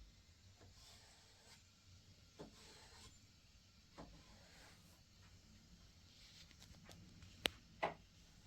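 Near-silent room tone with faint, scattered small clicks and knocks. Two sharper clicks come close together near the end.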